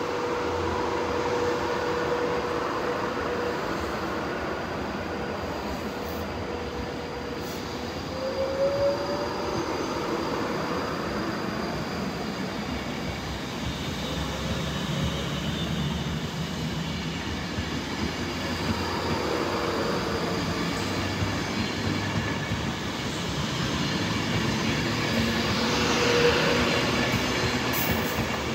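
Class 390 Pendolino electric train moving past on the nearby track: steady wheel-on-rail rumble with a held electrical tone that glides up in pitch about eight seconds in, growing louder near the end.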